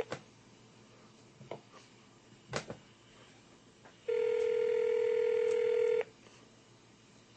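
Telephone ringback tone: the outgoing call ringing unanswered at the other end, with one steady two-second ring about four seconds in. A few faint clicks come before it.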